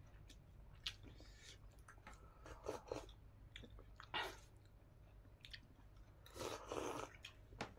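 Quiet mouth sounds of a person eating: soft chewing and small wet clicks, with slurps of lentil dal sipped from a bowl about four seconds in and again near the end.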